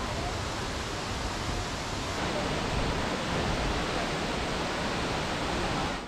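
Steady rushing of falling water from a rainforest waterfall, a little louder from about two seconds in.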